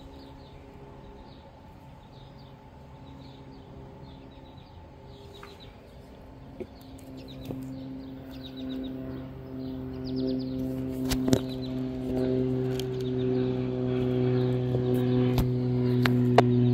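Small birds chirping over a steady low droning hum that grows louder from about halfway, with a few sharp clicks in the second half.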